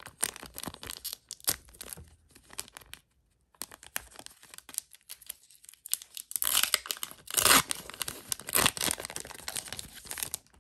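A foil trading-card booster pack wrapper being crinkled and torn open by hand: crackling and rustling throughout, with the loudest tearing in the second half.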